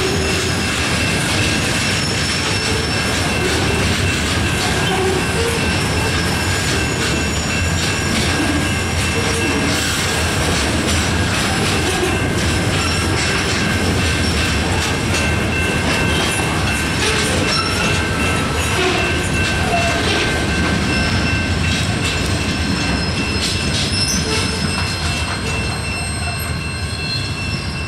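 Freight flatcars loaded with long steel rail rolling past: a steady rumble of wheels with frequent clicks, and a steady high tone over it. The sound eases slightly near the end as the tail of the train passes and draws away.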